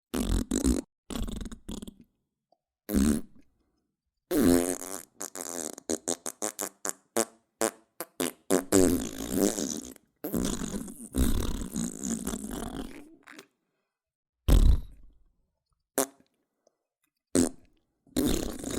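A string of separate fart sounds with silent gaps between them. First come short blasts, then from about five seconds in a run of quick short pops. After that come longer drawn-out ones, and a few short ones near the end.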